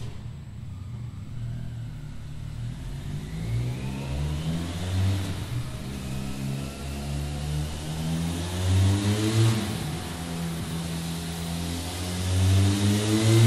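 Benelli 502 C's 500 cc parallel-twin engine through its stock exhaust, idling and revved up in several short throttle blips that rise and fall back to idle, the last blip near the end the loudest.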